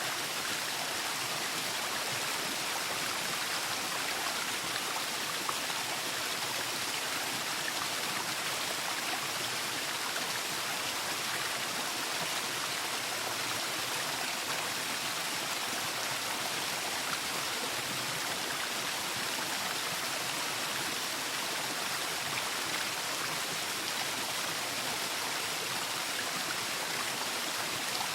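Waterfall: a steady, even rush of falling water with no breaks or separate sounds.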